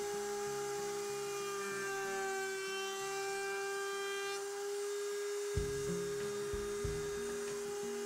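Table-mounted router running at speed with a steady high whine while a roundover bit rounds over the edges of a wooden board.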